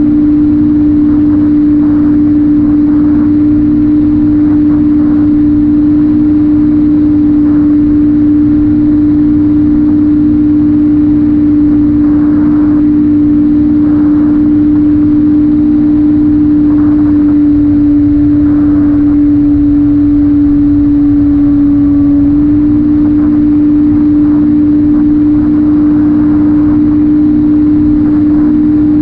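Electric pusher motor and propeller of a Ranger2400 RC plane, heard from the onboard camera in cruise: a loud, steady drone with wind rush underneath. Its pitch sags slightly and steps back up about three-quarters of the way through as the throttle shifts.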